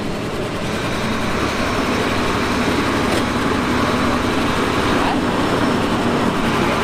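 Diesel engine of heavy earthmoving machinery running steadily, growing slightly louder over the first couple of seconds.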